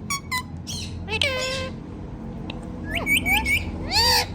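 Ringneck parakeet calling: a few quick chirps, then separate squawks and a quick run of high notes, the loudest a rising-and-falling squawk near the end.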